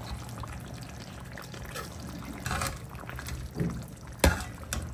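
Thick mutton curry being stirred with a metal ladle in a kadai, with wet sloshing of the gravy and a sharp knock of the ladle against the pan about four seconds in.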